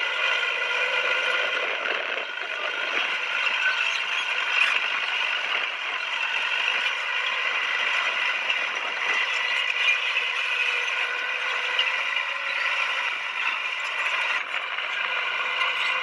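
Komatsu bulldozer at work, its running gear and steel crawler tracks clattering and rattling steadily.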